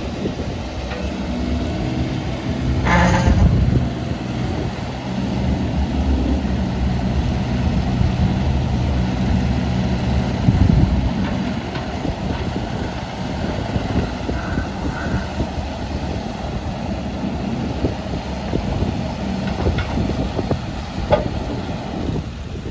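JCB 16C-1 mini excavator's diesel engine running, its pitch shifting up and down, with a brief harsh higher sound about three seconds in.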